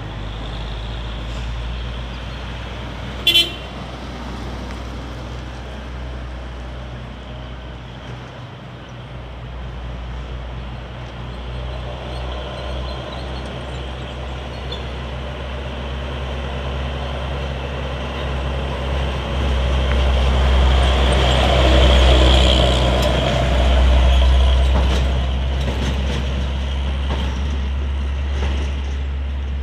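Heavy truck traffic on a hill road: diesel engines running with a deep steady rumble, one vehicle growing louder from about halfway and passing close near the end. A brief horn toot about three seconds in.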